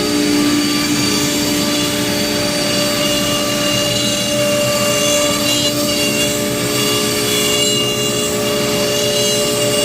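CNC router machining wood: a steady spindle whine with several fixed tones over a loud rushing noise.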